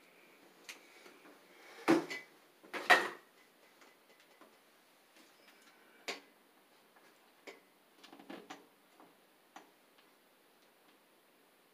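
Light clicks and small knocks of a ClosetMaid white wire shelf's support brace being handled and pressed against the wall, with two louder knocks about a second apart, about two and three seconds in.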